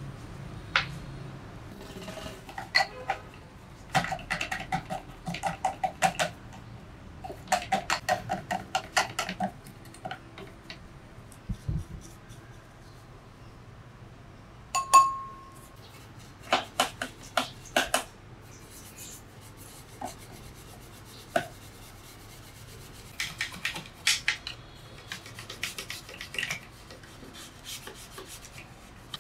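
A bristle brush wet with liquid scrubbing the inside of a mini inverter welding machine, over its circuit board and parts, in several bursts of quick scratchy strokes. About halfway through there is a single short ringing clink.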